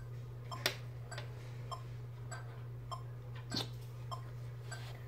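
A metronome ticking steadily at 100 beats per minute, about one click every 0.6 seconds, left running after a trumpet scale. A steady low hum runs underneath, with a louder click about half a second in and a short rustle a little past three and a half seconds.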